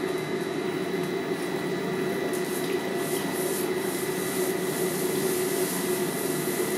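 Forge air blower running steadily, a constant whirring hum with a faint high tone, blowing air into the fire to bring the steel bar up to heat.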